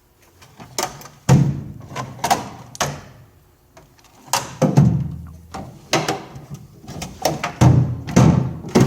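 Steel doors and lids of a vintage Snap-on tool chest being swung open and shut, giving a string of irregular metal clunks and clacks, some with a heavier thump.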